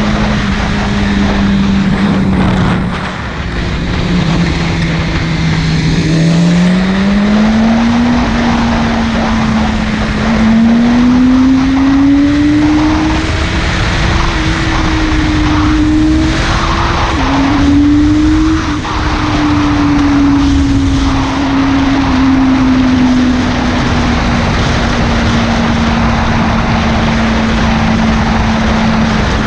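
Buell 1125CR's 1125 cc liquid-cooled V-twin engine running under way, its pitch dipping briefly about three seconds in, climbing over the next several seconds as the throttle opens, wavering, then holding nearly steady near the end.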